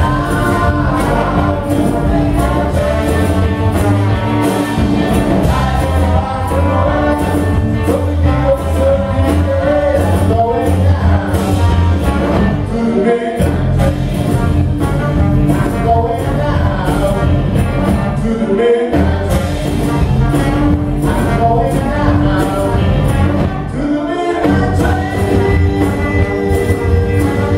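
Live rock band playing a song with singing: electric guitar, bass guitar, trombone, tambourine and drums together, loud and continuous.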